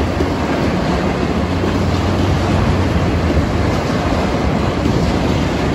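Freight train flatcars rolling past a grade crossing: a steady rumble of wheels on the rails, with a steady low hum underneath.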